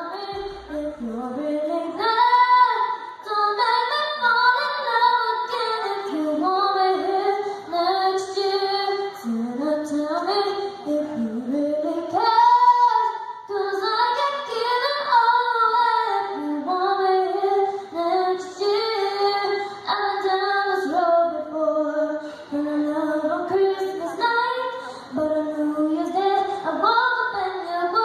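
A young boy singing a Christmas pop song solo in a high voice, holding long notes that slide up and down.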